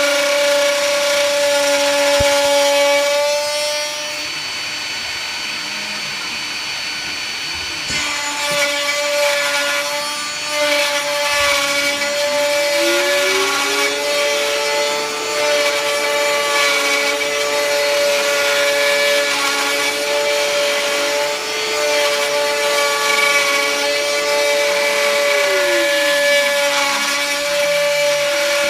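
Small 3020 desktop CNC router's spindle running with a steady high whine while milling a wooden floorboard, the cutter rasping on the wood. It goes quieter for a few seconds near the start. A second, lower tone rises in pitch, holds for about twelve seconds, then falls away near the end.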